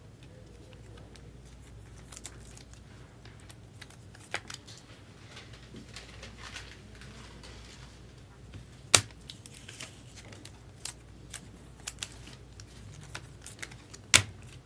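Hands handling trading cards and their wrappers: soft crinkling and rustling with small ticks, a sharp click about nine seconds in and another near the end, over a low steady hum.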